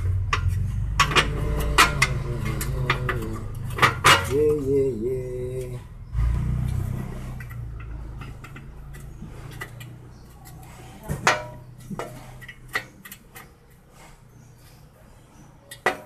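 Scattered clicks, knocks and light clatter of a car radiator fan's electric motor and plastic fan shroud being handled and fitted together by hand. A low steady rumble runs underneath for the first six seconds, then fades.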